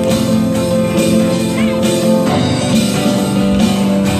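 Live praise-and-worship music: acoustic guitar strumming chords over held notes, the chord changing about two seconds in.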